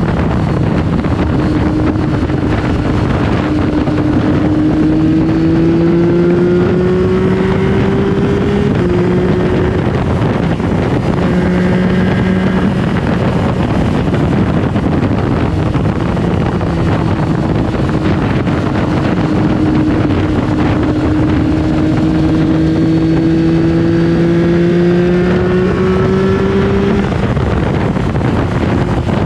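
Triumph Tiger Sport 660's three-cylinder engine pulling on the move, its pitch climbing slowly through two long pulls and dropping back at gear changes. Wind rushes over the microphone throughout.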